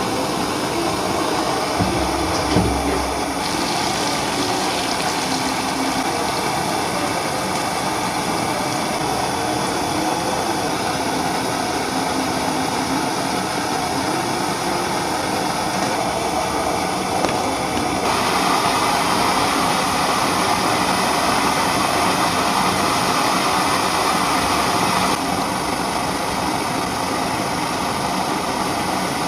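Kerosene pressure stove (primus) burner running with a steady rushing noise. It grows louder for several seconds in the second half, and there is a brief low thump a couple of seconds in.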